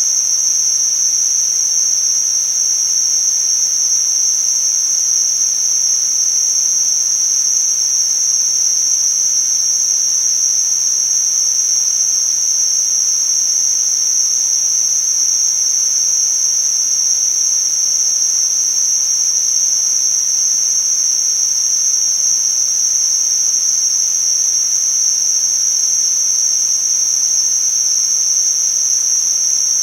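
Tinnitus-masking noise: a steady, unchanging high-pitched hiss, like a thin whistle of noise, over a fainter even hiss at all pitches.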